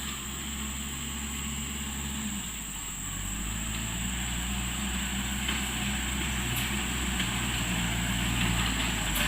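Engine of a mechanical fertilizer spreader running steadily. Its note shifts about three seconds in and it grows gradually louder.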